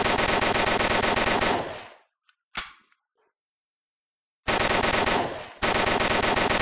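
MAT-49 submachine gun firing long bursts of fully automatic fire. The first burst dies away about two seconds in, a single sharp crack follows, and after a pause of about two seconds a new burst starts, breaks off briefly and resumes.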